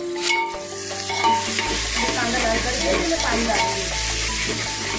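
Sliced onions sizzling in hot oil in an aluminium pressure cooker while a ladle stirs them. The sizzling grows fuller about a second in.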